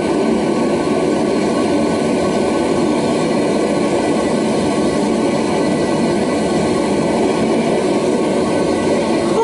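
Propane burner of a gas forge running with a steady, loud roar of flame.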